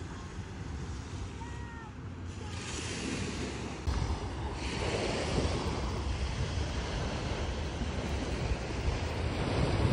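Small Gulf of Mexico waves washing along the sandy shore, with wind noise on the microphone that grows heavier from about four seconds in. A bird calls a few times near the start.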